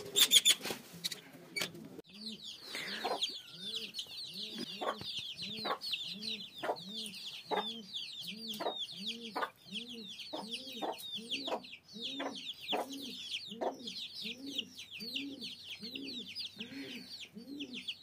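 A flock of young chicks peeping continuously in high chirps, over a low clucking that repeats about twice a second. Sharp taps come in between, and there is a brief clatter at the start.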